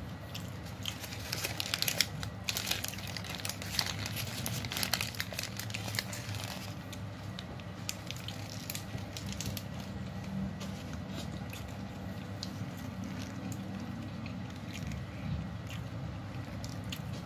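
Paper kebab wrapper crinkling and rustling as the wrapped kebab is handled and turned, busiest in the first six seconds, over a low steady background hum.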